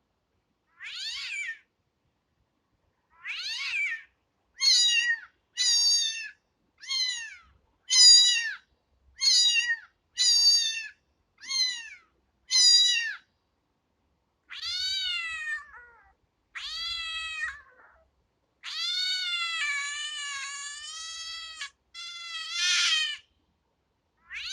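A cat meowing repeatedly: short high-pitched meows about once a second, then a few longer drawn-out meows, the longest lasting about three seconds near the end.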